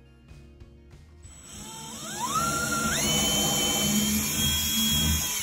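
Cordless drill boring through a wardrobe door panel: the motor whine rises in two steps as the trigger is squeezed, runs steady at high speed, then cuts off suddenly at the end.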